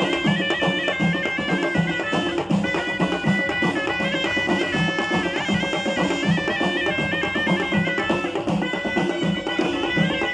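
Moroccan Amazigh folk music: a reed pipe with a flared bell plays a loud, stepping melody over frame drums beating a steady rhythm.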